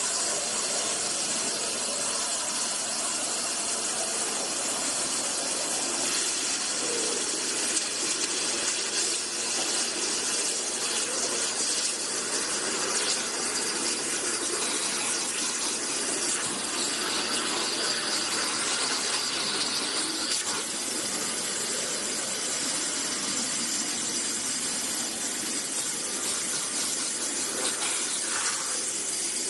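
CNC waterjet cutter's high-pressure water jet cutting, a steady hiss with no breaks.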